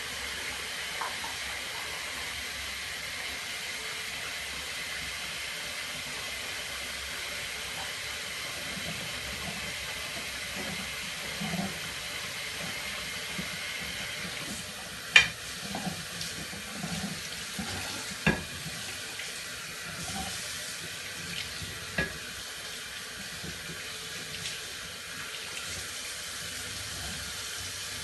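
Dishes being washed by hand at a sink: tap water running steadily, with several sharp clinks of dishes knocking together, the loudest about halfway through.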